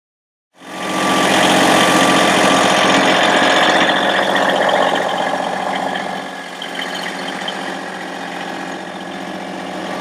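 Massey Ferguson GC1720 sub-compact tractor's three-cylinder diesel engine running steadily, close by. It starts about half a second in and drops slightly in level about six seconds in.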